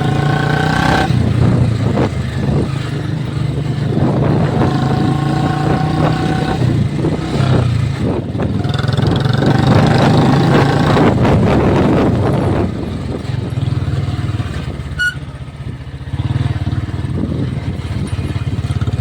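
Royal Enfield Bullet's single-cylinder engine running under load as the motorcycle is ridden off-road, the engine note rising and falling with the throttle. It eases off about two-thirds of the way through, then picks up again.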